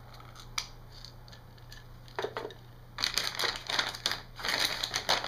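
A few light plastic clicks, then from about three seconds in a loud, dense crinkling as hands rummage in a metallised anti-static plastic bag.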